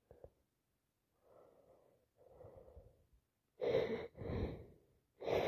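A person with a head cold breathing: two soft breaths, then about three and a half seconds in, two loud, quick gasping breaths, the catch of breath that comes before a sneeze.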